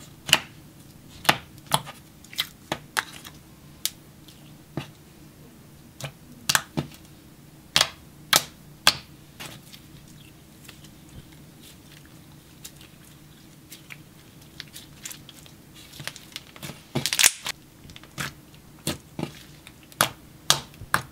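Slime being poked, pressed, stretched and folded by fingers, giving irregular sharp pops and clicks, roughly one or two a second, with a quick cluster of them about two-thirds of the way through.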